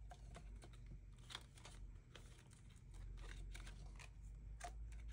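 Faint rustling with scattered soft ticks as clear plastic cash envelopes in a ring binder are flipped and paper bills are handled, over a faint low hum.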